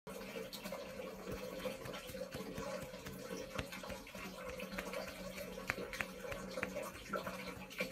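Fingertip rubbing and scratching at a temporary tattoo on skin, giving small sharp clicks that come more often in the last couple of seconds, over a steady low hum.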